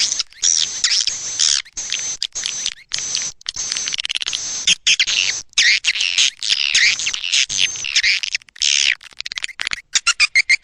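Recorded swiftlet calls: dense, rapid twittering chirps of edible-nest swiftlets, the lure call played to draw swiftlets into a swiftlet house. Near the end the calls turn into a quick run of short chirps, about six a second.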